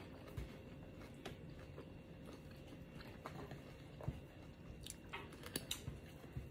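Quiet close-up eating sounds: a person chewing, then biting into a small yellow pepper in the second half, with a few faint crunchy clicks.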